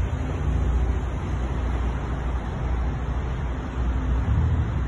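Low, steady rumble of vehicle engines and street traffic, swelling briefly about four seconds in.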